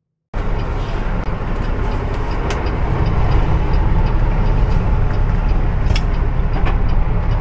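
Semi truck cab noise while driving: the diesel engine's steady low rumble mixed with road noise, starting abruptly a moment in, with a few faint clicks.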